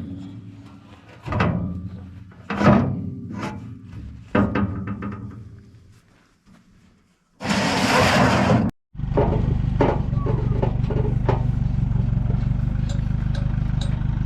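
Background music of a few struck notes, each dying away, then a brief loud burst of noise about halfway through. After that an engine runs steadily and low.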